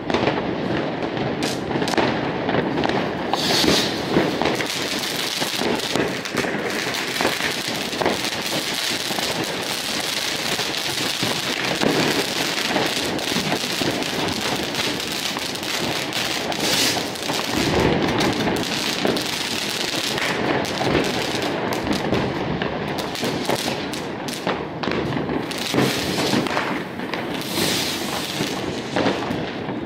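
Fireworks going off: a dense, unbroken crackle of many firecrackers and rockets, with sharper bangs scattered through it.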